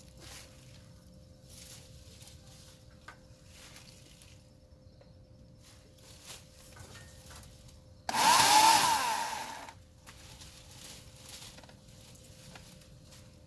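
Portland 14-inch electric chainsaw triggered once for under two seconds: the motor and chain start suddenly about eight seconds in, then wind down and stop.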